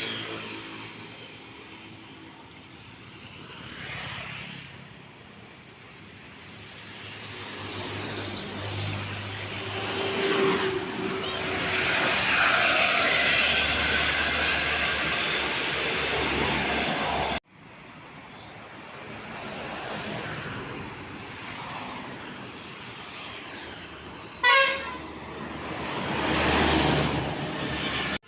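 Tour buses pass with their engines running, sounding Basuri multi-tone 'telolet' horns. The sound swells as a bus comes close, breaks off suddenly about 17 seconds in, and a short loud horn blast comes about 24 seconds in.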